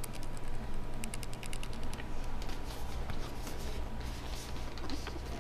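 Fingers handling and turning a small cardboard retail CPU box: a run of light clicks, taps and rustles, over a low steady hum.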